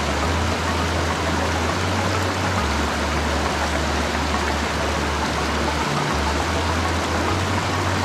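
A rocky river running fast over boulders: a steady, even rush of water.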